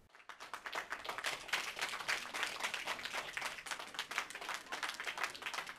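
Audience applauding: dense, quick clapping from many hands that builds up over the first second.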